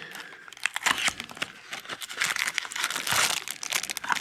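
Packaging crinkling and crackling as it is handled and opened, a dense run of small crackles that gets busier partway through.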